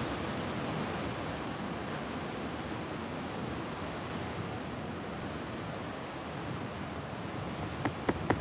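Steady rush of sea surf washing against a rock platform, mixed with wind on the microphone. Near the end come a few sharp clicks or taps.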